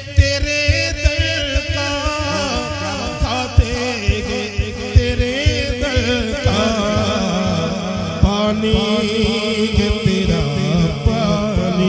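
A man's voice chanting a naat into a microphone, the melody long-drawn and wavering, with frequent short low thumps beneath the voice.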